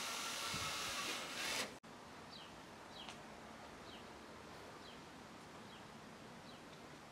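Cordless drill running as it bores a hole through the plastic tank of a garden pump sprayer, stopping abruptly a little under two seconds in. Then a bird chirps over faint background noise: a short falling chirp repeated a little more often than once a second.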